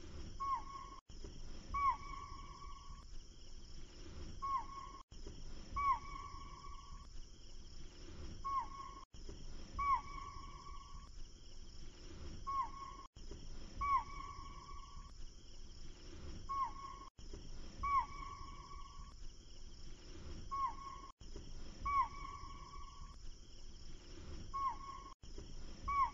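A looped nature-ambience track: the same four-second stretch repeats over and over, with a brief dropout at each joint. Each stretch holds a bird-like call, a short held whistle with quick falling notes after it, over a steady high hiss.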